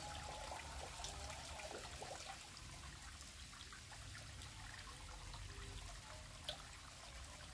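Faint, steady trickle of water flowing in a shallow river channel, with one short tick about six and a half seconds in.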